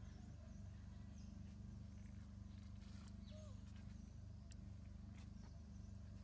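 Near silence: a faint steady low hum, with a few faint short high chirps and soft clicks.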